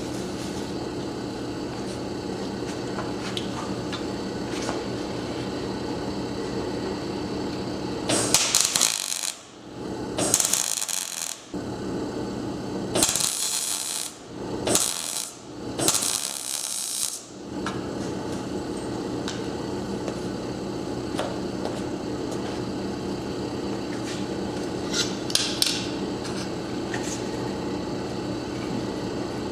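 MIG welder laying short stitch welds on a steel exhaust pipe: five bursts of crackling arc, each about a second long, come one after another in the middle, with a short extra crackle later. A steady hum runs underneath throughout.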